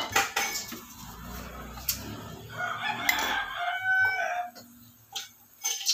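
A rooster crowing once, starting about two and a half seconds in and lasting about two seconds. A wooden spatula clicks and scrapes against a nonstick frying pan at the start and again near the end.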